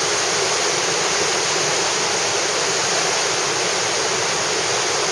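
Steady, unbroken rush of churning whitewater at a big river rapid with a drop of more than a metre.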